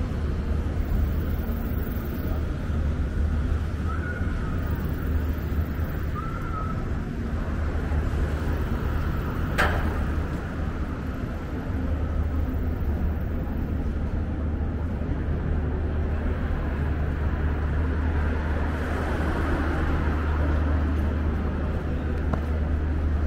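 City street ambience with a steady low rumble of traffic, and a single sharp click near the middle.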